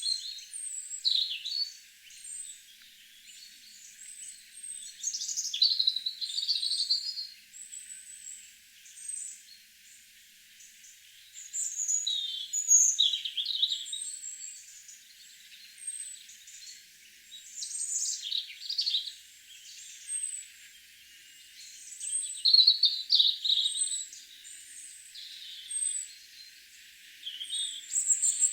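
Several garden songbirds singing and calling over one another: bursts of chirps and warbled phrases, with a short, high call repeating every second or two.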